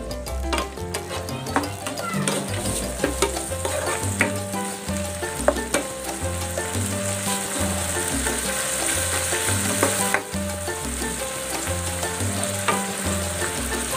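Shrimp, red onion and garlic sizzling in oil in a nonstick pan, with a spatula stirring and scraping them around the pan in short strokes.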